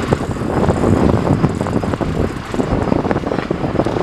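Sportfishing boat's engine running, with wind buffeting the microphone.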